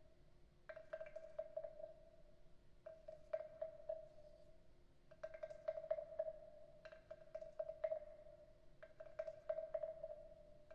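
Wooden frog percussion instrument played with a stick along its ridged back, giving about five rasping strokes, each about a second long, of fast wooden clicks over a steady hollow tone.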